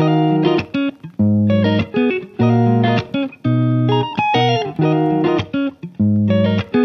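Background music: a plucked guitar tune played in short phrases of separate notes.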